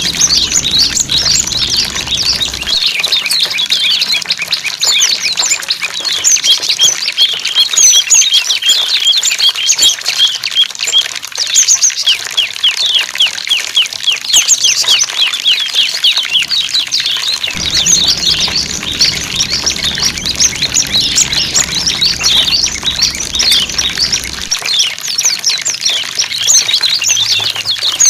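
Small songbirds chirping in a dense, unbroken chorus of short, high, quickly falling notes, several birds calling over one another without pause.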